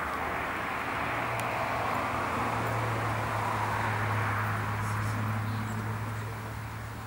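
An engine passing at a distance: a steady low hum under a broad hiss that swells through the middle and fades near the end.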